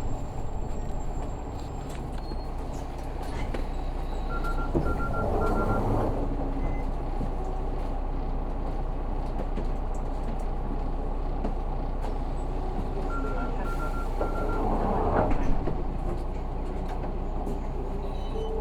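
City bus with an Isuzu 6HK1 six-cylinder diesel idling at a stop, heard from inside the cabin. Twice, a set of three short warning beeps is followed by a brief rush of air as the pneumatic doors work.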